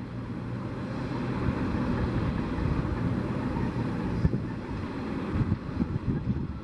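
Distant jet engine noise from a Boeing 777-200F's GE90 turbofans as the freighter moves along the runway. It swells over the first second or so and eases a little after about four seconds. Gusty wind buffets the microphone throughout.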